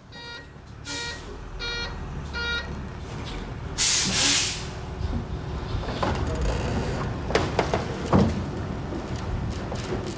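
Box truck's engine idling, with a reversing beeper beeping four times at even spacing, then a loud hiss of air at about four seconds. Sharp clanks follow as the latch on the cargo box's rear door is worked.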